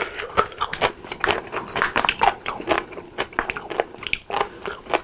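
A foil drink pouch crinkling and crackling close to the microphone as it is handled and its top worked open, in many quick irregular crackles.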